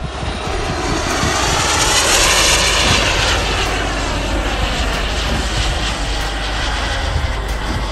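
Radio-controlled model jet flying past overhead: a steady rushing jet noise that swells to its loudest about two and a half seconds in, then eases slightly as it flies on.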